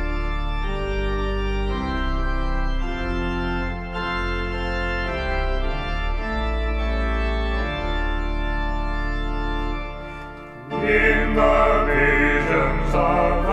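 Organ playing slow, sustained chords that change every second or two. About eleven seconds in, the organ dips briefly and a choir comes in, singing louder over it.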